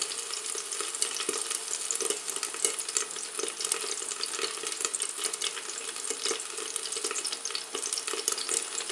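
Eggplant slices frying in oil in a thin frying pan under a glass lid: a steady sizzle with dense crackling and popping. The slices were frozen raw and thawed, so they carry plenty of water into the hot oil.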